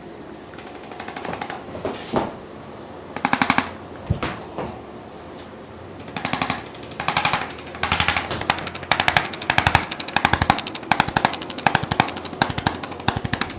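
Handheld percussive chiropractic instrument firing rapid taps in short bursts. The first burst comes about three seconds in, and further bursts follow in quick succession from about six seconds on.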